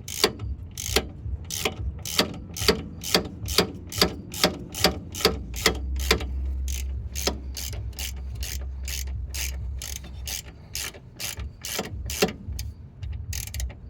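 Hand ratchet with a T55 Torx bit clicking about two to three times a second as it runs in a front brake caliper bolt.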